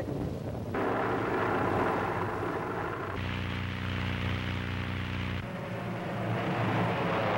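Propeller aircraft engine drone laid over the film as edited sound-effect segments that switch abruptly about a second in, about three seconds in and about five and a half seconds in. The middle segment is a steady pitched hum; the others are a noisier rumble.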